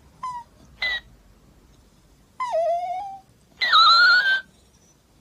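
A Shiba Inu whining: two short whimpers in the first second, then two longer whines, the first sliding down in pitch and the second the loudest.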